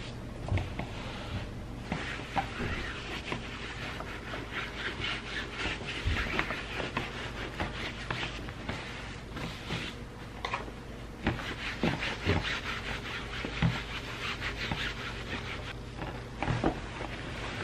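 Steam iron pushed back and forth over a cotton shirt on a padded ironing board, a rhythmic rubbing swish, with a few soft knocks as the iron is set down and shifted. Near the end the shirt fabric rustles as it is handled.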